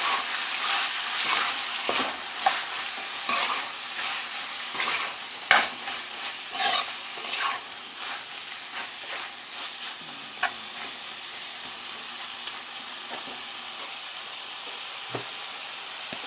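Metal spoon stirring and scraping large shrimp and curry paste around a metal pot, over a steady sizzle of the shrimp frying dry in the paste (the bunjay stage, before any water is added). The scraping and clinking strokes come thick in the first half and thin out, leaving mostly the sizzle.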